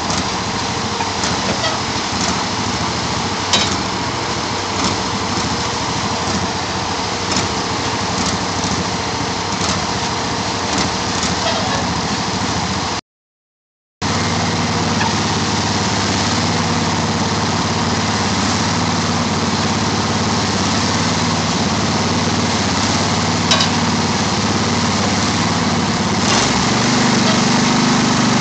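Engines of a kerb-laying machine and a concrete mixer truck running steadily while concrete is fed into the machine. The sound drops out for about a second halfway through; after that the low engine hum is stronger and grows louder near the end.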